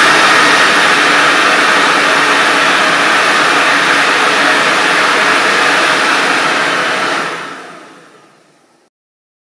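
Electric air blower forcing air through a homemade gas turbine, a loud steady rush of air as the turbines and gearbox output shaft spin unpowered and unlubricated. The noise dies away from about seven seconds in and is gone about two seconds later.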